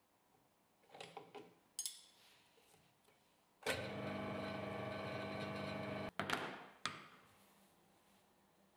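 Homemade lathe's electric motor running steadily with a level hum, spinning the sandpaper-covered plywood wheel for about two and a half seconds before cutting off suddenly. A few light taps and clicks before it, and a couple of knocks after.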